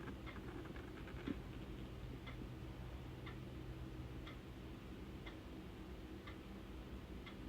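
Ticking clock, a faint tick about once a second over a low steady hum, with one brief low knock about a second in.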